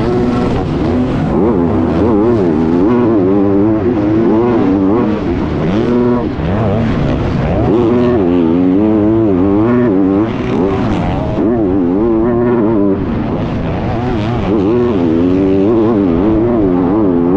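Onboard sound of a 250cc four-stroke motocross bike racing flat out in deep sand. The engine revs up and down over and over as the rider works the throttle and shifts gears, with brief dips in revs twice.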